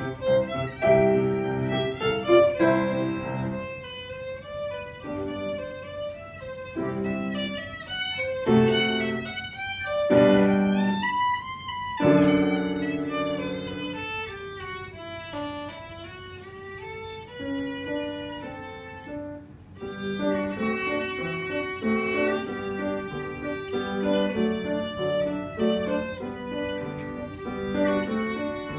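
Violin playing a minuet, with piano accompaniment.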